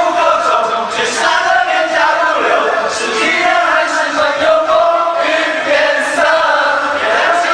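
A group of voices chanting together in a steady rhythm, several voices at once.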